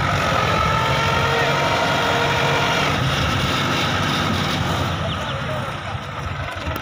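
Mahindra 595 DI tractor's diesel engine running steadily under load as it pulls a fully loaded trolley through mud, easing off a little near the end.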